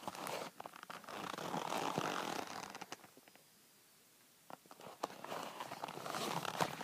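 Rustling and scraping handling noise as a camera and a wrist blood pressure monitor are moved about, quiet for a moment midway, then a few sharp clicks and more rustling near the end.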